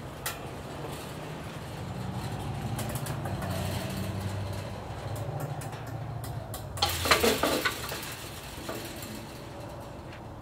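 A chain-link gate rattling and clanking in a short metallic burst about seven seconds in, over a steady low engine hum.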